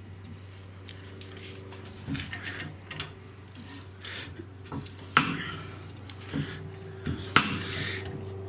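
Occasional metal knocks and light clinks from large steel C-clamps being handled and shifted on a leaf spring pack, with two sharper knocks about five and seven seconds in, over a steady low hum.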